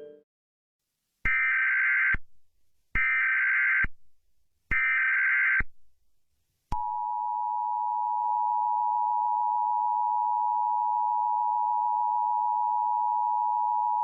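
Emergency Alert System header: three short bursts of warbling SAME data tones, each about a second long with brief gaps, then the steady two-tone EAS attention signal starting about seven seconds in.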